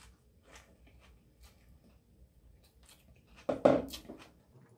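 Close-up mouth sounds of someone eating a fresh rice-paper spring roll: soft wet chewing clicks and smacks, with one louder wet mouth sound about three and a half seconds in.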